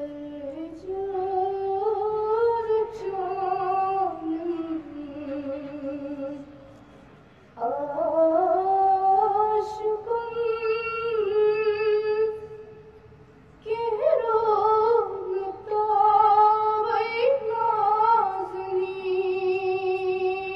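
A teenage girl singing a Kashmiri naat solo without instruments, in three long melismatic phrases with short breaths between them, her voice wavering in pitch.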